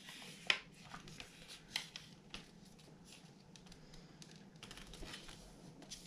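Faint rustling and crinkling of a folded paper square being handled and creased by hand, with a few soft crackles scattered through.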